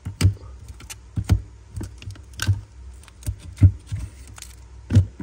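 Metal Zippo lighters being handled: a series of sharp, separate metallic clicks and clinks, about seven in all, over a steady low hum.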